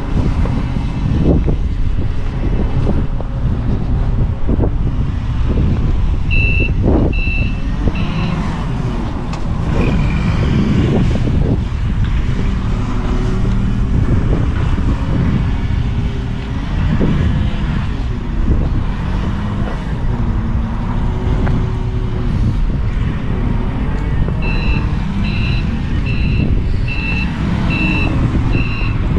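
Steady low rumble of a heavy vehicle's engine running, with a few knocks and clatters, and a reverse alarm beeping: three beeps about six seconds in, then a regular run of beeps, a little over one a second, starting near the end.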